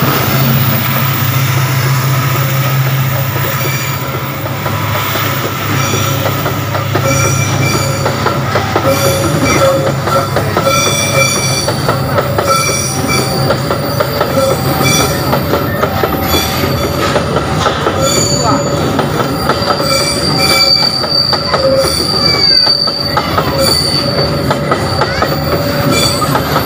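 Steel wheels of empty coal hopper wagons squealing against the rails as a long freight train rounds a sharp curve: several shrill, ringing tones come and go over the steady rolling rumble of the wheels. The locomotive's diesel engine hum is heard over the first few seconds, then dies away as the wagons follow.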